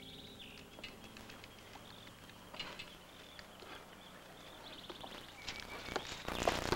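Hooves of a ridden horse thudding on arena turf, scattered at first and getting louder and closer near the end. A bird chirps faintly in the background.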